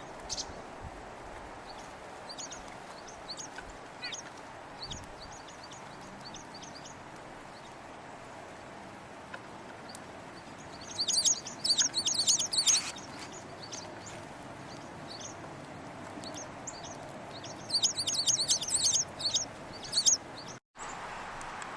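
Small winter songbirds giving short, high chip and twitter calls. The calls are scattered at first, then come in two dense bouts of rapid chattering, about 11 seconds in and again around 18 seconds.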